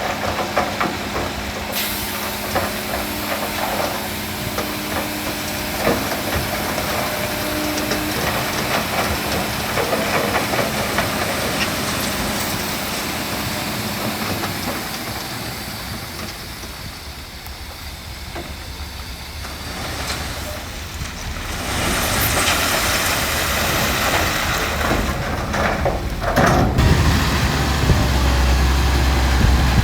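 Heavy diesel machinery at work, a bulldozer and dump trucks running, with a steady hiss over the engine noise. A deep engine rumble grows louder near the end.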